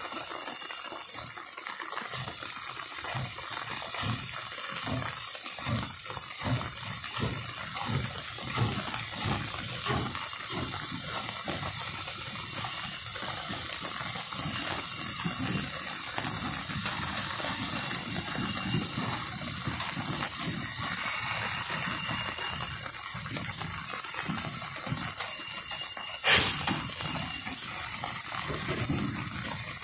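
Norfolk & Western J-class 4-8-4 steam locomotive No. 611 passing slowly at close range: a steady hiss of steam over a regular chuffing of its exhaust, with a single sharp clank near the end.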